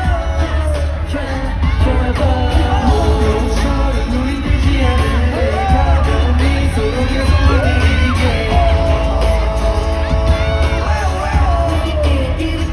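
Live pop song played loud through a concert sound system: singing voices gliding over a heavy bass beat, with yells from the audience.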